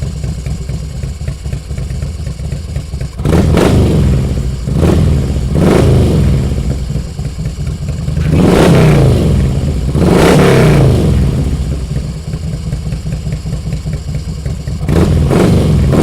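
Harley-Davidson Road King's V-twin engine idling, then revved repeatedly: short throttle blips a few seconds in, two longer revs around the middle, dropping back to idle between them, and another rev near the end.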